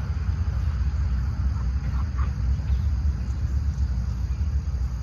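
Outdoor ambience: an uneven low rumble under a faint, steady high insect chirring, with a couple of short faint calls about two seconds in.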